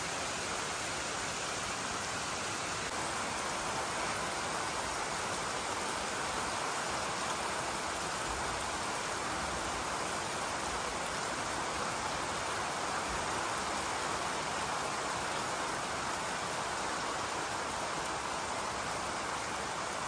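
Steady rain falling on grass and trees: a continuous, even hiss with no breaks.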